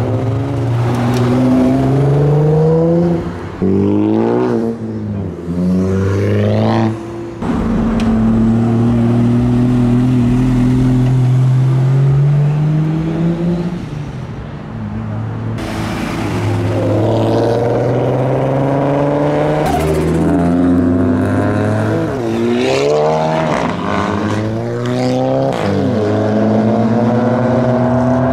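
Several modified cars accelerating away in turn, their engines revving up in pitch and dropping back at each gear change, one after another.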